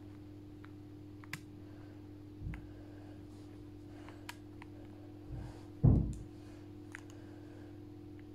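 Handling noise from a phone held in the hand: a few faint clicks and soft dull thumps, with a louder thump about six seconds in, over a steady low hum.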